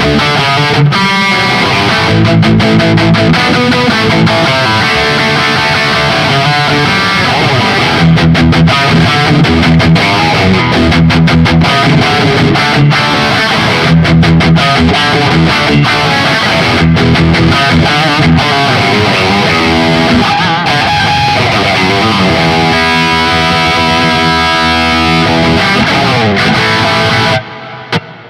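Höfner 4575 electric guitar played through distortion: a run of riffs and chords, then longer held chords with a few slides. It breaks off suddenly near the end.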